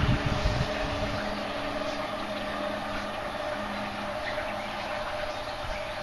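A steady mechanical hum made of a few constant tones, over an even hiss, with a couple of low thumps at the start.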